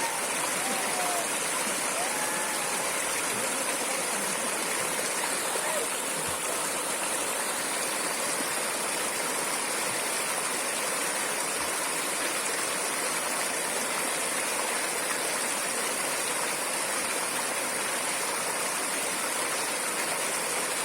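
Water flowing in a stream, a steady, unbroken rush.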